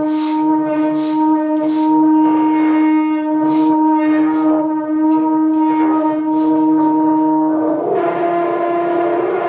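Trombone holding one long low note with a slow, regular pulsing in its upper tones, then moving to a slightly higher, rougher note near the end.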